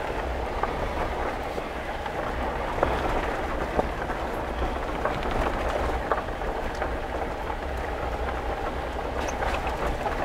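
Inside a vehicle driving on a gravel road with the passenger window wide open: a steady low rumble of tyres and wind noise, with scattered sharp ticks and knocks from the road.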